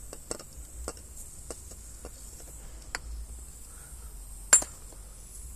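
Light clicks and taps from handling an aerosol tyre-sealant can and its hose at a motorcycle's rear tyre valve, with one sharp clink about four and a half seconds in, the loudest sound, over a steady faint hiss.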